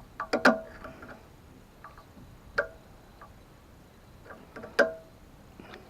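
Metal clinks and clicks of hand tools and hardware being worked on a fitting, three louder sharp strikes about two seconds apart with a brief ringing tone, and lighter clicks in between.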